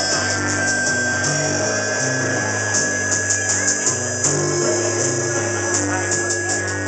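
Live instrumental music: an electric bass plays a repeating line of low notes that step up and down over electronic backing, with clusters of sharp high ticks.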